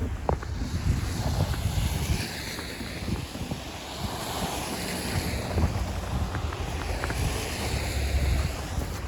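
Wind buffeting the microphone in a low, uneven rumble, with a hiss that swells and fades twice.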